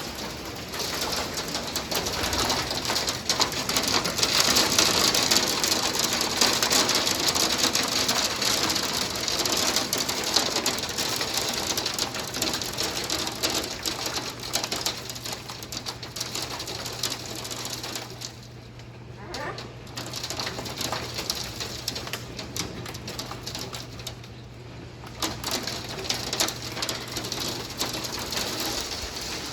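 Hailstones pelting down, a dense, steady clatter of small hits. It is heaviest in the first third and eases twice in the second half.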